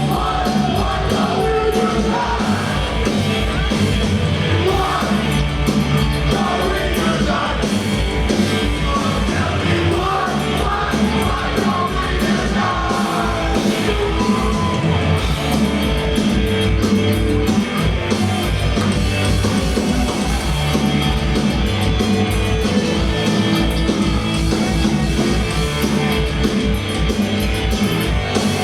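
Live punk rock band playing loud, with distorted guitars, bass and drums under yelled vocals, the vocals mostly in the first half.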